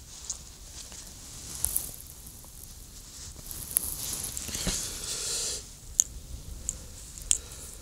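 Hand-handling of a small fish on the ice: scattered light clicks and taps with soft wet squishing, and a hissing stretch about four to five seconds in.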